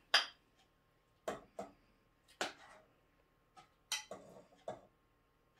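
Metal ladle clinking against a stainless steel pot and a ceramic plate while shrimp in tomato sauce is scooped out: about eight short, irregular clinks, the first one the loudest.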